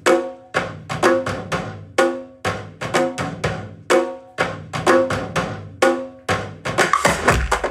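Percussion-heavy music played through a pair of three-way floor-standing speakers driven by a Sinilink XY-AP50L amplifier under test: sharp, pitched knocking beats about once a second, with lighter hits between.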